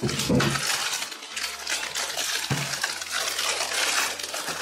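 Water running steadily, with a single sharp click about two and a half seconds in.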